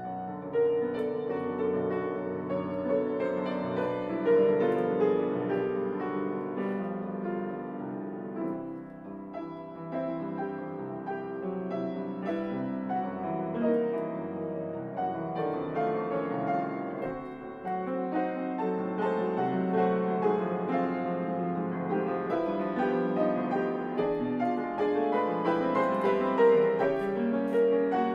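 Solo grand piano playing classical music in full, dense chords, growing louder near the end.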